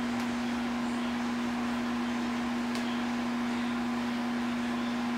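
A steady machine hum: one low tone held without change over a faint even hiss, with two faint clicks.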